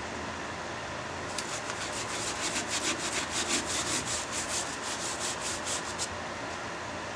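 Gloved hand rubbing sawdust and thin CA glue into a punky spot on a spalted oak bowl: a quick run of short rubbing strokes, about four a second, starting a little over a second in and stopping about six seconds in. A steady hum runs underneath.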